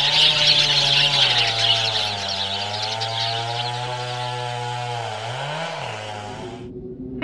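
A steady, low, motor-like drone that wavers slightly in pitch and swells up and back down once near the end, under a dense high hissing chirr. Both stop abruptly shortly before the end.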